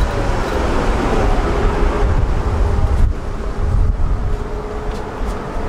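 Tram running: a loud, steady low rumble with a faint steady whine over it.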